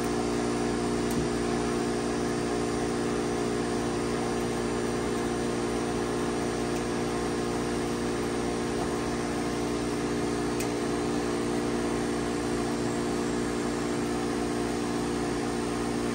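Gold Medal Econo Floss cotton candy machine running, its spinner head motor giving a steady hum over an even whirring noise as it spins sugar into floss.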